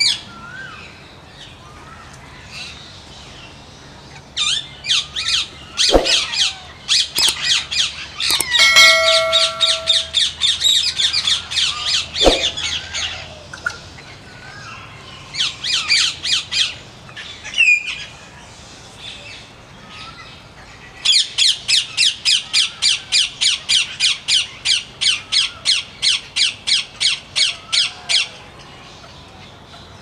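Parakeets squawking in bouts of fast, harsh repeated calls; the longest bout, near the end, runs about seven seconds at roughly three calls a second. Two short sharp knocks sound among the calls.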